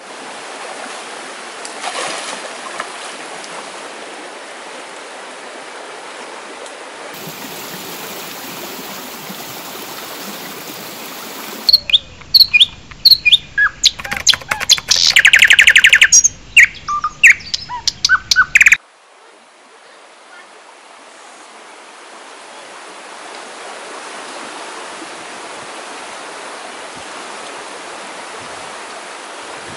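Steady rush of flowing creek water, broken for about seven seconds midway by a loud logo sting of rapid chirps and sharp clicks that cuts off suddenly, after which the water sound fades back in.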